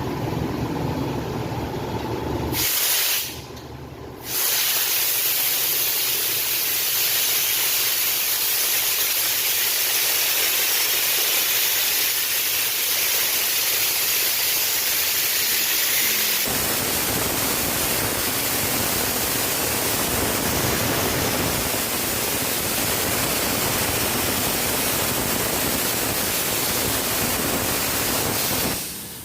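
Compressed air hissing loudly and steadily from an air hose while a tire is worked on. It breaks off briefly a few seconds in, then keeps going with a fuller, lower rush in its second half.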